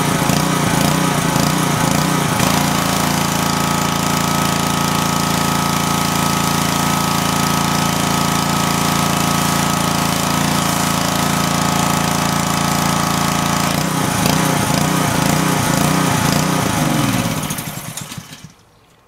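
Briggs & Stratton engine of a 2800 PSI pressure washer running steadily under load, with the water jet hissing from the spray gun. The pump is making pressure again now that the sheared key between engine and pump is fixed. Near the end the engine shuts off and winds down.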